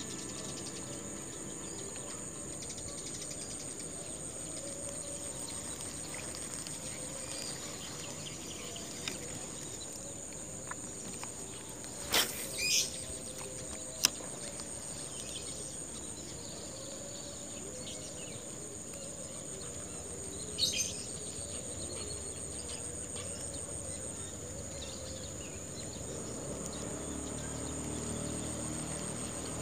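Steady high-pitched insect chorus, a continuous trilling, with a few short sharp clicks and chirps in the middle.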